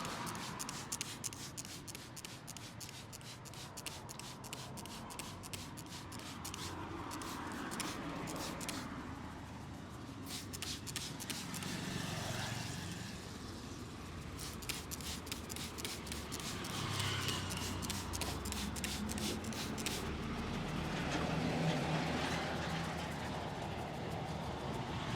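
Rapid, even percussive taps of hands striking the body during a massage, several a second, in two long runs with a pause of a few seconds between them, over steady street traffic.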